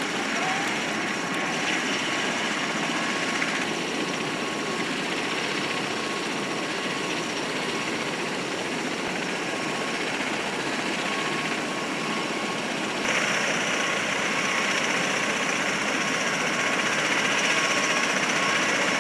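MV-22B Osprey tiltrotor running on the ground with its rotors turning: a steady rush of rotor and engine noise with a thin turbine whine, getting louder and brighter about two-thirds of the way through.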